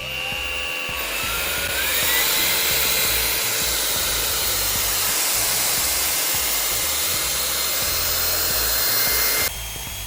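Okami V600 cordless stick vacuum running at maximum power. The motor spins up over the first two seconds with a rising whine, then runs steadily with a high whine over rushing air. The sound drops abruptly near the end.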